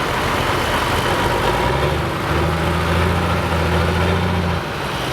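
Heavy engine of a modified pulling tractor idling at low revs with a steady low hum that drops away near the end.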